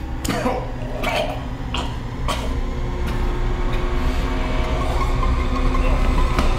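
A deep rumble that swells steadily louder, with four sharp clicks or knocks in the first two and a half seconds and a few faint held tones over it.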